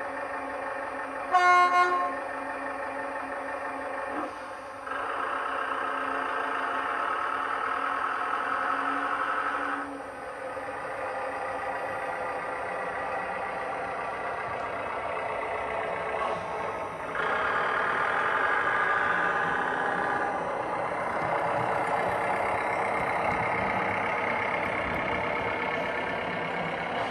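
Sound decoder of a Heljan O gauge GWR diesel railcar model giving one short horn toot, then its recorded diesel engine running as the railcar pulls away. The engine note steps up and down several times as it goes.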